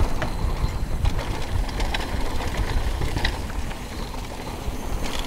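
Downhill mountain bike rolling fast over a dirt trail: a steady rumble of knobby tyres on dirt, with scattered clicks and rattles from the bike.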